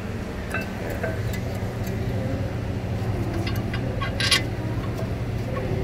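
Light metallic clicks and taps as a rear brake caliper bracket and its bolts are worked into place by hand, with one sharper metal clink about four seconds in, over a steady low hum.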